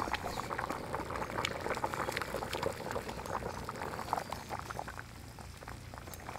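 Chicken curry boiling hard in a wide metal kadai over a wood fire: a steady, rapid bubbling with many small pops. The curry is at a full boil after water has been added to the browned meat.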